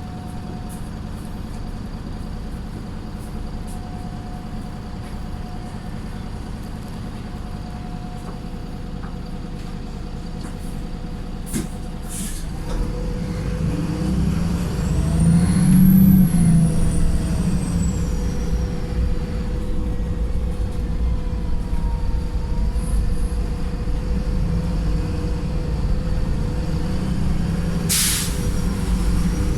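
Diesel engine of a Wright Pulsar single-deck bus running under way, a tired engine with thrash. About halfway through it pulls harder, louder, with a high whine rising and falling, and near the end there is a short air-brake hiss, the bus's 'sneeze'.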